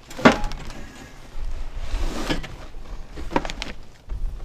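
Large cardboard boxes being shifted and slid off a wooden pallet: a sharp knock just after the start, a scraping slide about two seconds in, and a couple more short knocks at about three and a half seconds.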